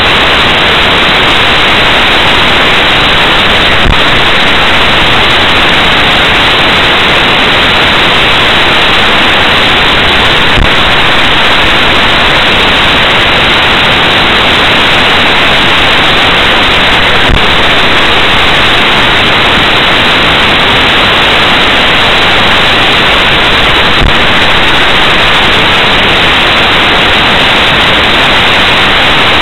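Loud, steady hiss of static from a dashcam's audio track. A faint click recurs about every seven seconds.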